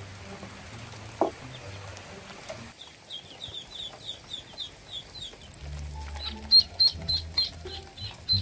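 Ducklings peeping: a rapid run of short, high, falling peeps that starts about three seconds in and keeps going.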